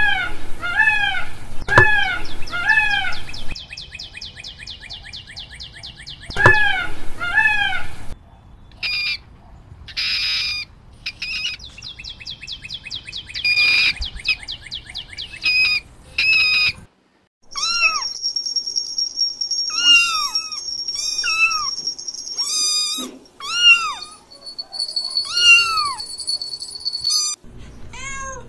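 Several animal calls in turn. It opens with about four loud, drawn-out calls from a peacock, then a fast high trill and scattered high chirps and squeaks. Over the last ten seconds comes a run of cat meows with a steady high tone behind them.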